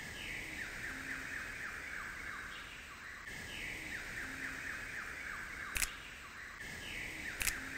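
Looped warbling sci-fi sound effect for an animated UFO intro: a run of rapid falling chirps over a low hum, repeating about every three seconds, with two sharp clicks in the second half.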